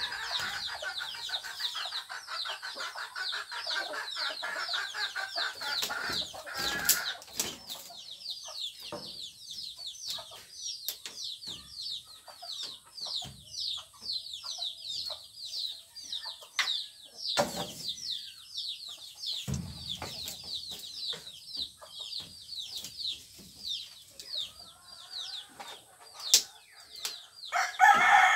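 Chickens: short, high, falling peeps repeated about four times a second throughout, with clucking in the first few seconds and a louder call near the end. Scattered sharp knocks of the bamboo wall panel and its wooden frame being handled.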